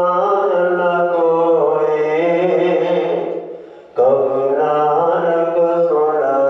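A man's voice chanting Gurbani in a slow, drawn-out melodic recitation: a long held phrase, a brief break about three and a half seconds in, then the next phrase.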